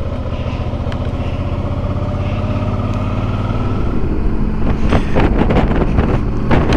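Motorcycle engine running steadily while riding, joined by louder, rougher noise in the last couple of seconds.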